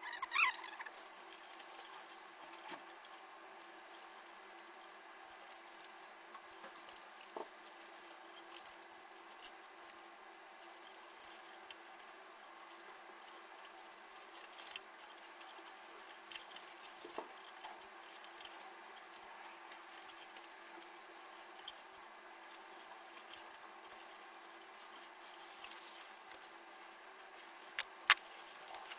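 Faint, scattered clicks, taps and light scratching of small PC parts being handled and fitted, with a short cluster of clicks at the start and one sharp click near the end.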